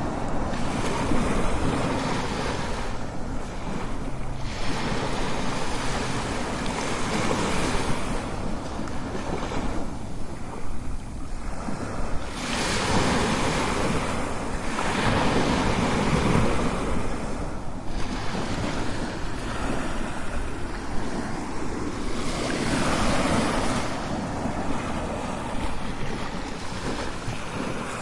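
Strong ocean waves crashing and washing in, swelling and ebbing every few seconds, with wind on the microphone.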